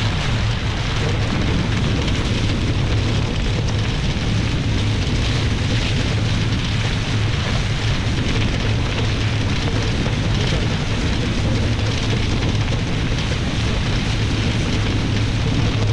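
Steady rush of wind on the microphone and water hissing past the hulls of a Nacra 20 racing catamaran sailing fast downwind under spinnaker.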